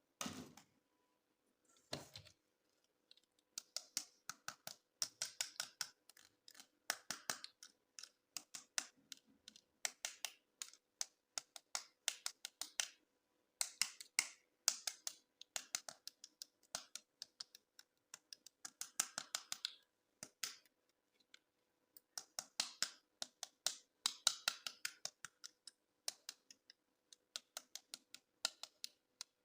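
Toys and their packaging being handled during unboxing: bursts of quick, sharp clicks and crackles, with two soft thumps near the start.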